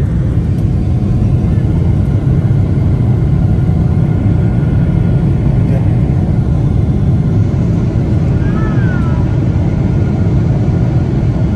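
Airliner cabin noise during the climb after take-off: the underwing turbofan engines and airflow make a steady, loud, low rumble. About eight and a half seconds in, a brief faint high tone rises and falls.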